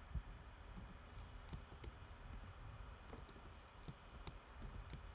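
Faint, irregular clicks of a computer keyboard and mouse as text in a form field is edited, over a quiet room hum.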